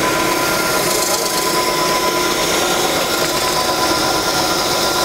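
Concrete floor grinder running steadily on a concrete slab: a constant machine whir with a hiss over it and a few faint steady tones.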